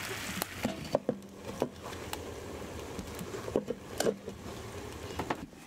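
Diced potatoes frying in a pan with a soft sizzle, with scattered clicks and knocks of cookware, including a glass lid set down on the pan about four seconds in.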